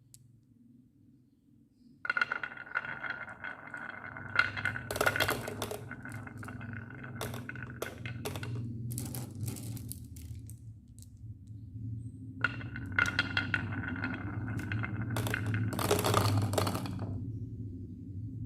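Marbles rolling and clacking down a marble run, a steady rolling rumble with many sharp clicks. There are two runs: the first starts about two seconds in and ends near the middle, and the second starts a couple of seconds later and stops shortly before the end.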